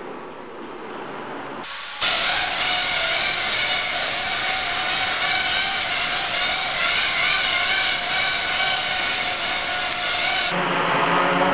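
Small quadrocopter's electric motors and propellers buzzing, played back four times fast so the whine is raised and wavers in pitch. It starts abruptly about two seconds in after a quieter hiss, and near the end gives way to a lower, steadier hum at normal speed.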